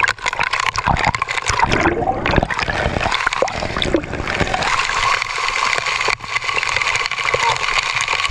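Water splashing and bubbling around an action camera as it dips in and out of a waterfall pool, with crackling bubbles at first. About halfway through it settles into a steady rush of falling water.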